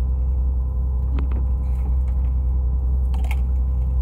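Fishing boat's engine running steadily, a deep low rumble with a faint steady hum above it. A few short sharp clicks come about a second in and again near the end.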